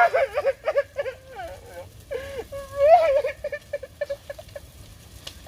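A man wailing and sobbing in high, drawn-out cries that break off and start again, loudest at the start and about three seconds in, then fading to smaller sobs.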